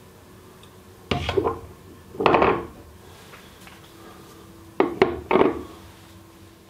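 Three short bursts of clinking and scraping, about one, two and five seconds in: load being put on a three-point bending test jig, bending a 3D-printed test bar against a dial indicator.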